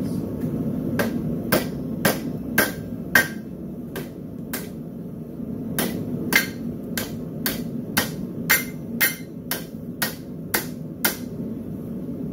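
Blacksmith's hand hammer striking red-hot steel on the anvil horn, sharp ringing blows at about two a second with a short lull partway through, over a steady low rumble.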